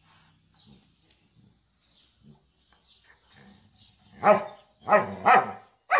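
A dog barking: after a quiet stretch of faint scattered sounds, three loud barks in quick succession about four seconds in.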